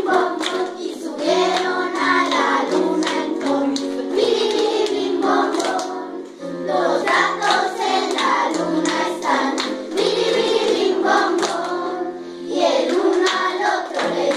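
A children's choir singing a children's song together, holding each note and moving between them in steps.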